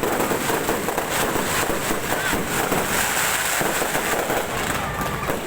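A fireworks display going off: dense, continuous crackling with many sharp pops packed close together.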